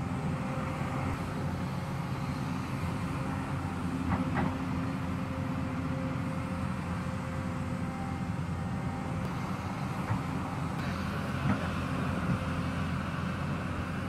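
Hyundai crawler excavator's diesel engine running steadily, with a few short knocks from the bucket working against the earth and rock of the hillside.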